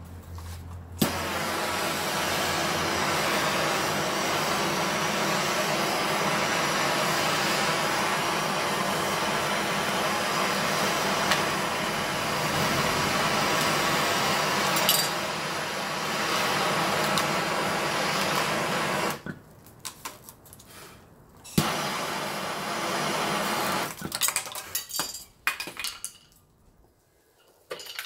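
Electric heat gun blowing steadily, heating the connector's solder joints on an ECU circuit board until the connector can be pried off. It switches on with a click about a second in, shuts off suddenly after most of the stretch, runs again briefly, and then gives way to scattered light metal clinks and taps as the loosened connector is worked free and handled.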